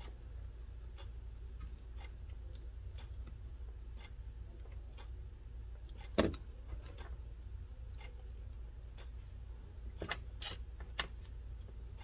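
Faint, scattered clicks and taps of metal tweezers and tools working on a small circuit board, over a low steady hum, with a sharper click about six seconds in and another near the end.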